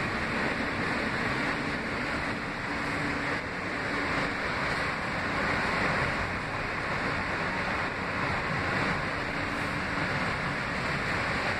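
Inside an R160A subway car (Alstom-built) running along elevated track: a steady rush of wheel-on-rail and car-body noise, with a faint hum that comes and goes.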